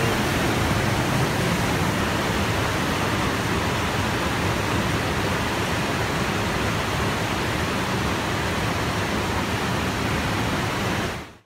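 Rushing creek water pouring through rocky rapids in a narrow canyon, a steady full rush of whitewater. It fades out at the very end.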